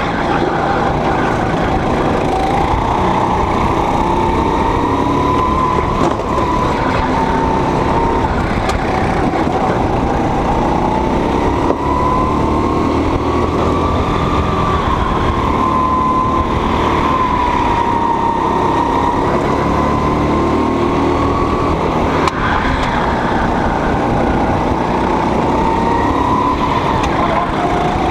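Go-kart engine running under load during a lap, its pitch rising and falling gently every few seconds as the kart speeds up and slows for corners.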